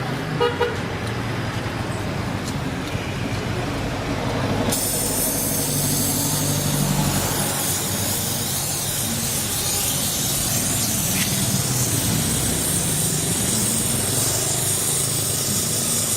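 Gas brazing torch hissing steadily, starting abruptly about five seconds in. A couple of short knocks come just before a second in.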